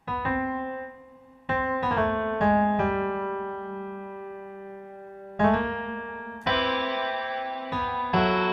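Software piano playing a slow melody of struck chords and notes, each left to ring and fade, with a long held chord in the middle.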